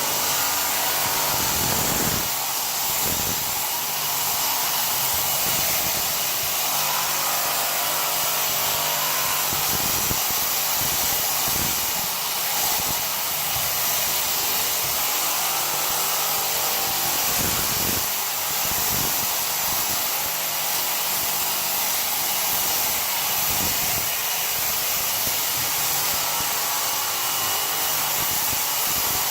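A motor-driven machine running steadily with a loud rushing hiss, with a few brief knocks along the way.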